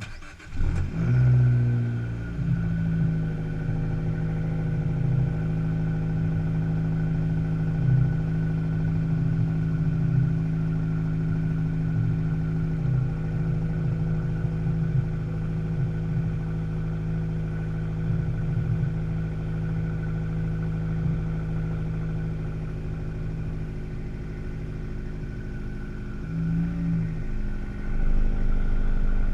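Fiat 500 Abarth driving: a steady drone of engine and road noise with a strong low hum. It carries a faint noise from one wheel that the owner puts down to either a bad wheel bearing or brake pads dragging on the rotor.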